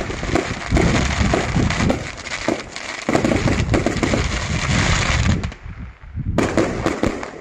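Fireworks display: aerial shells bursting with bangs and dense crackling, which thins out about five and a half seconds in, followed by a fresh cluster of bangs.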